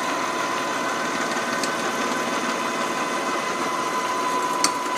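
Bridgeport milling machine running with a three-flute end mill plunging into an aluminium Harley-Davidson cylinder head. A steady motor whine runs over a fast, even chatter from the cut. Sharper rattling clicks start near the end.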